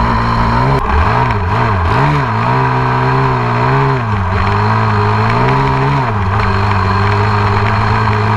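Dirt bike's single-cylinder four-stroke engine (KTM 500 EXC) running on the trail. Its note rises and falls in a few quick blips, then in longer swells as the throttle is worked, and settles back to a steady pitch near the end.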